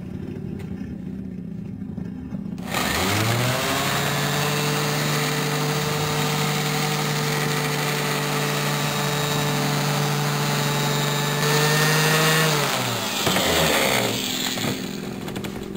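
Random orbital sander starting about three seconds in, its motor rising to a steady whine as it buffs polishing paste over a blued chrome exhaust pipe, then winding down near the end.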